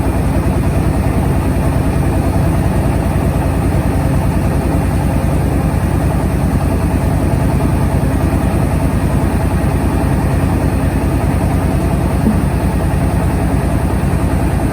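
Engine of a mobile rice-milling truck running steadily, with a fast, even pulse.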